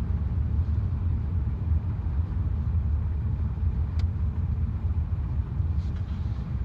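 Lada Vesta driving, a steady low road and running rumble, with one sharp knock about four seconds in from the front suspension, which the owner puts down to worn front strut mounts.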